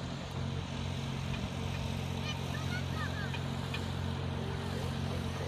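Steady low engine hum, with birds calling in short gliding notes from about two seconds in and again near the end.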